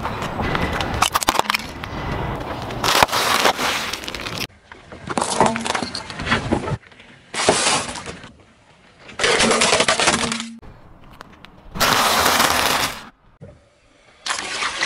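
Car tyre rolling over and crushing things on asphalt (a pile of hard candies, a bag of crisp snacks, a block of jelly). It makes a run of separate crunching, cracking bursts of one to four seconds each, which start and stop abruptly. The first and longest burst holds sharp cracks.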